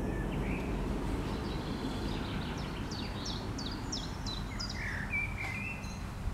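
A songbird singing a run of quick, high, falling chirps about halfway through, followed by a few short whistled notes, over a steady low outdoor rumble.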